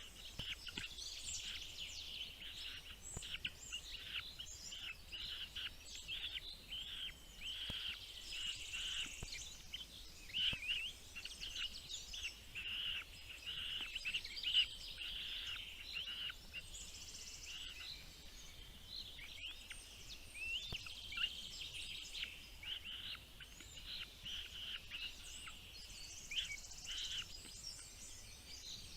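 Small birds chirping: a dense, continuous run of short, high chirps.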